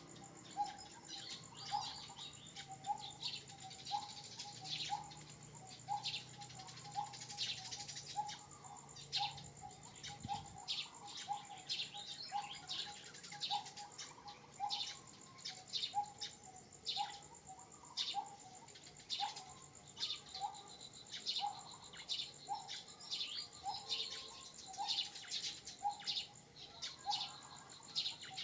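Natural outdoor soundscape: birds chirping repeatedly over a steady, high insect whine, with a short, lower call repeating about one and a half times a second.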